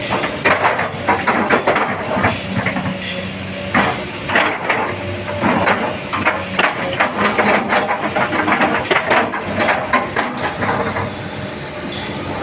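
Komatsu PC200 hydraulic excavator running, its engine giving a steady hum under hissing and rapid, irregular metallic clanks that ease off about a second before the end.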